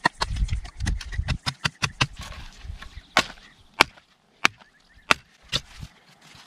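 Victorinox Venture fixed-blade knife striking into wood. A quick run of light chops comes first, then single harder blows spaced about half a second to a second apart.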